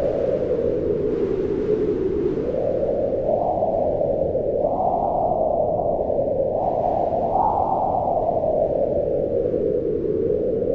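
Strong wind howling in a blizzard, a steady low rush that swells and eases in slow gusts, rising about four and seven seconds in before settling again.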